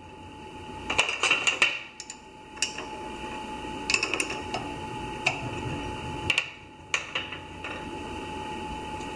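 Short metal clinks and knocks, about eight scattered through, as the change gears on a Sieg SC4 lathe's gear train are turned and handled and the gear nut is worked with an open-end wrench. Under them runs a steady electrical hum from the lathe with its power on.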